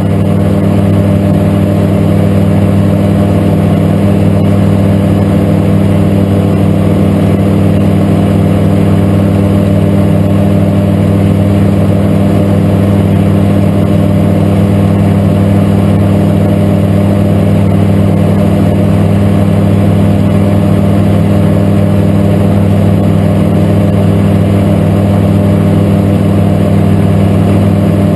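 Light aircraft's engine and propeller droning steadily in flight, heard inside the cockpit.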